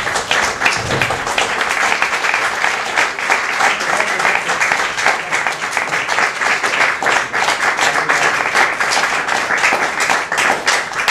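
Audience applauding: many hands clapping, dense and steady throughout.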